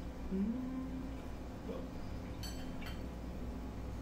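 A fork clicking lightly against a ceramic plate twice, a little over halfway through, over a steady low room hum. A short hummed voice sound about half a second in.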